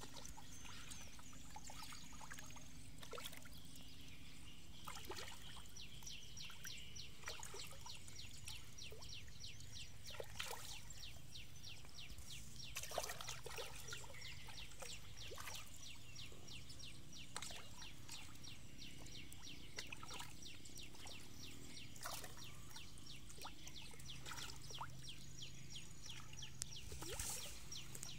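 Faint small splashes and pops of fish taking food at the water surface, a few standing out over the others. A steady, fast, high-pitched ticking runs under them.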